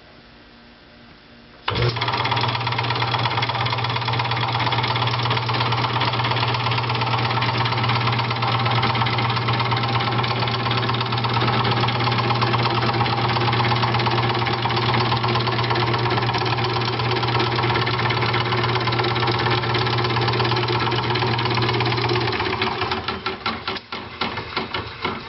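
A 1930 Boice Crane 10-inch cast-iron jig saw (scroll saw), belt-driven by a small electric motor over a flat leather belt, starts up suddenly about two seconds in and runs steadily with a fast mechanical clatter over a steady hum. Near the end the motor cuts out and the saw clatters more slowly as it coasts to a stop.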